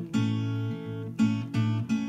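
Acoustic guitar strumming chords as song accompaniment: one chord rings for about a second, then three quick strums follow near the end.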